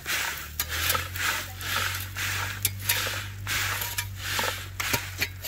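Dirt and gravel shaken back and forth across the wire mesh screen of a homemade wooden rock-hounding sifter: a rhythmic rattling hiss, about two strokes a second, with small knocks of stones and the wooden frame.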